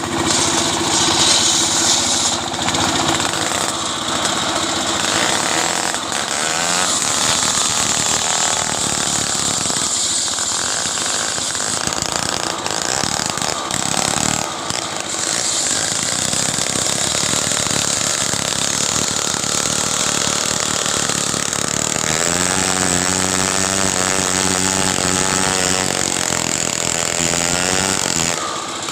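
Stihl chainsaw running continuously as it cuts wood, its engine settling into a steadier pitch for several seconds near the end.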